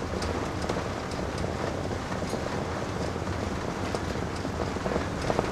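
Steady engine and tyre noise heard inside the cab of a motorhome driving along a wet dirt road, with a few faint ticks.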